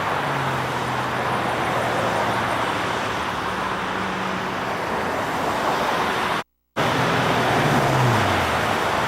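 Steady road traffic noise with a low engine hum that drops in pitch near the end. The sound cuts out completely for a moment about six and a half seconds in.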